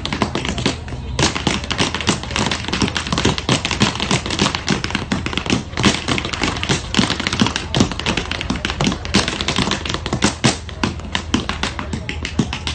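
Tap shoes striking a hard floor in rapid, uneven rhythms of sharp clicks, with a brief lull about a second in.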